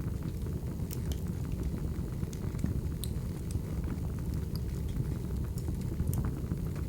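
Wood fire crackling: a steady low rumble of flames with scattered sharp pops and snaps, about a dozen of them.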